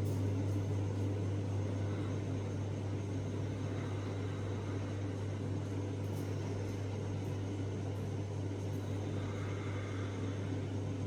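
A steady low hum over an even background hiss, unchanging throughout, with a few faint ticks.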